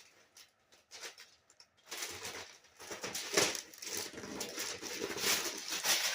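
Gift wrapping paper rustling and tearing, crackling unevenly from about two seconds in after a few light clicks.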